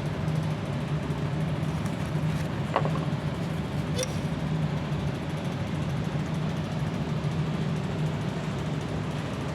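Mazda RX-7 rotary engine idling steadily, with one brief click about three seconds in.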